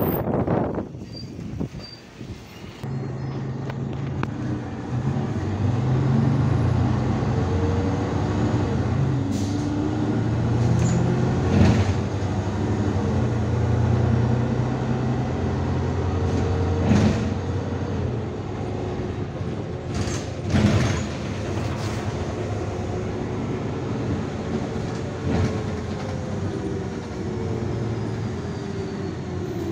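IVECO Urbanway 12M city bus heard from inside the cabin, pulling away and driving: a steady engine drone that picks up about three seconds in, with a whine that rises and falls in pitch as the bus gathers speed and slows. Several sharp knocks and rattles from the body over bumps.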